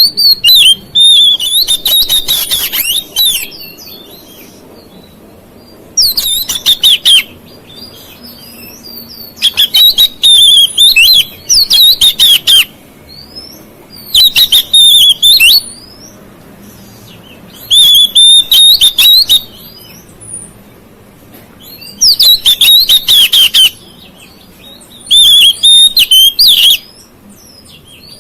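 Oriental magpie-robin (kacer) singing loudly in bursts of fast, varied, high phrases, about seven bursts a few seconds apart with short pauses between.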